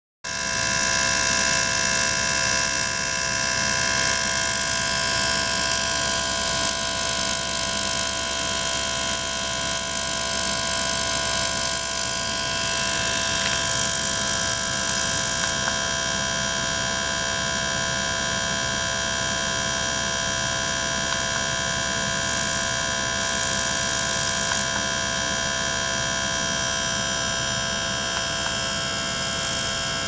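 A small circulating pump and an ultrasonic transducer running in a water tank full of rising bubbles: a steady hum with several high whining tones over a hiss. About halfway the high hiss drops away and the sound gets a little quieter, with the hiss coming back in short spells later on.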